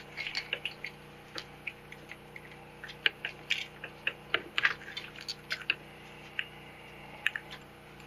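Irregular light clicks and taps of metal parts as an Arctic Cat APV power valve is twisted and worked loose from the engine's cylinder.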